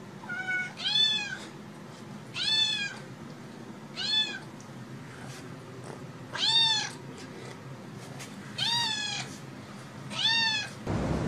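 Kitten meowing over and over: about six short, high-pitched meows, each rising and then falling in pitch, a second or two apart.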